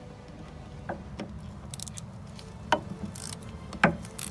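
3/8-inch ratchet with a 10 mm socket and extension clicking as it backs out a wheel cylinder mounting bolt on a rear drum brake: a handful of separate clicks, getting louder toward the end.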